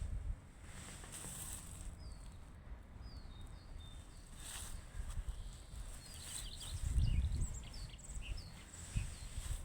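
Songbirds singing, with many short high chirps and quick sliding calls, a dense flurry of them from about six seconds in. A low rumble swells briefly around seven seconds in.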